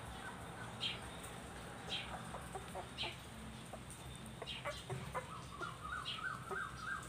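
Faint animal calls: a short high chirp about once a second, then from about five seconds in a quick run of short repeated notes, with a few soft clicks between them.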